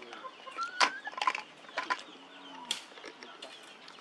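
Baby macaques being bottle-fed: scattered sharp clicks and knocks from the plastic milk bottle and the suckling, with a short rising chirp about half a second in.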